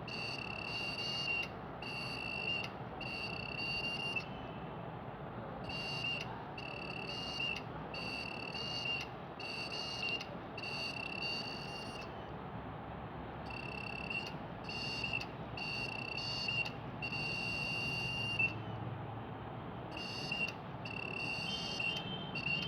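Failing hard disk drive beeping and clicking: short high-pitched beeps, each starting with a faint click, come about one every 0.7 seconds in runs of several, with pauses of about a second and a half between runs, over a steady hum. This is the sound of a drive that is not being detected, which the owner puts down to a head problem.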